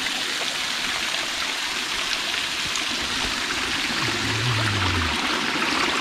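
Small waterfall pouring over a stacked-stone wall into a rocky pool: a steady rush and splash of falling water. About four seconds in there is a short low hum that falls in pitch.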